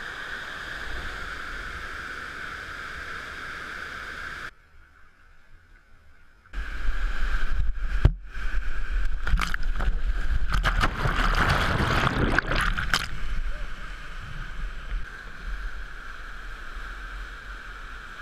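Whitewater rapids rushing steadily, dropping away briefly about four seconds in. From about six seconds in, loud churning and splashing with a deep rumble as the camera goes into the foaming water, easing back to a steady rush near the end.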